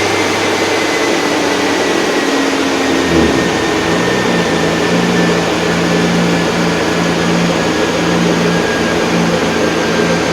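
An engine running at a steady speed under a loud, even rush of air. About three seconds in, its note changes and settles at a higher, steady pitch.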